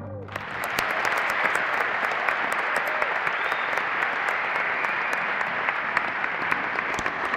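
Orchestra's last chord cutting off, then a large audience breaking into steady applause, with sharp claps close by.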